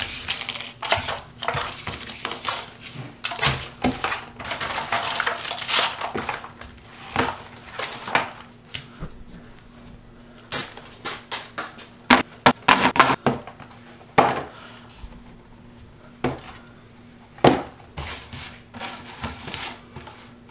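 Cardboard jigsaw puzzle pieces rustling and clattering as hands stir and sort them in their box. In the second half come a handful of sharp knocks as plastic sorting trays are set down on the table, over a low steady hum.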